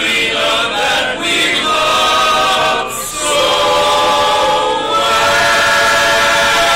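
Men's voices singing barbershop harmony a cappella, in close chords. After a short break about three seconds in, they settle on one long held chord for the last couple of seconds.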